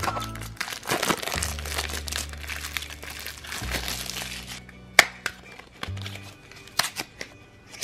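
Clear plastic shrink-wrap crinkling as it is peeled off a plastic Shopkins blind basket, then a few sharp plastic clicks as the basket is handled and opened, the loudest about five seconds in. Background music plays underneath.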